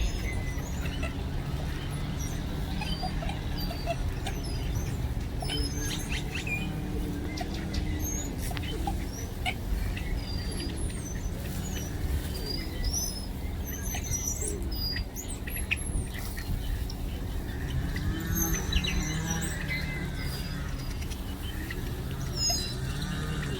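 Birds chirping in many short, high calls over a steady low rumble.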